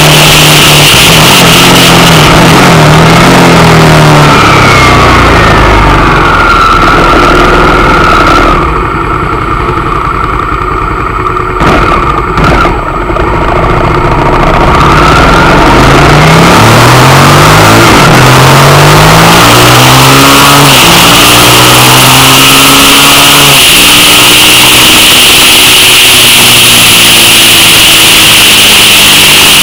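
Suzuki SV650 V-twin motorcycle riding along with heavy wind rush on a handlebar-mounted camera. The wind noise drops away as the bike slows about nine seconds in, with a few knocks around the twelfth second. The bike then pulls away, its engine note rising in several steps as it shifts up, and the wind rush builds again.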